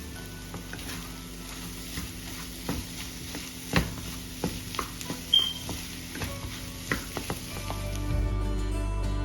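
Food sizzling in a frying pan, with sharp clicks and taps of a cooking utensil against the pan. Background music underneath grows louder near the end.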